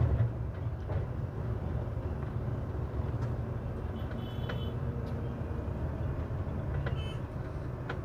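Steady low rumble of a Volvo coach on the move, heard from inside the cabin: engine and road noise.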